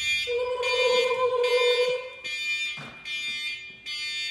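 High electronic alarm-style beeping, about one beep a second, from the air cannon's pressurizing system while its backpack air tank is charged and armed. A steadier, lower tone sounds over it for about two seconds near the start.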